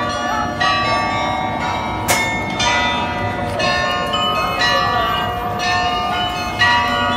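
Carillon bells in a tower playing a tune: many bells of different pitches struck one after another, each left ringing.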